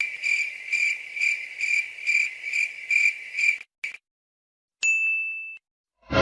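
Comedy sound effect of crickets chirping, the classic awkward-silence gag: a high pulsing chirp about twice a second for nearly four seconds. After a short gap comes a brief high ding about five seconds in.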